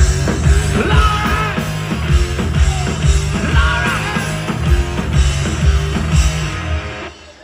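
Live rock band playing, with drums and electric guitar, cutting off suddenly near the end.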